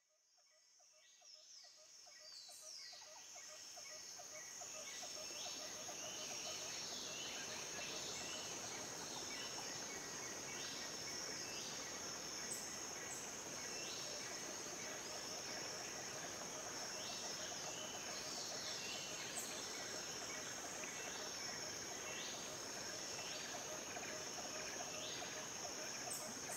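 Jungle-like ambience of insects and animal calls: a steady high insect drone, short descending chirps repeating every second or so, and a fast pulsing trill lower down. It fades in over the first few seconds, then holds steady.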